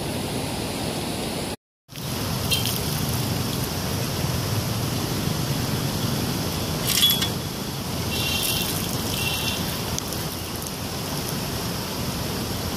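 Steady rushing of flowing river water, an even noise, with a few faint brief high sounds over it. It cuts out for a moment about two seconds in.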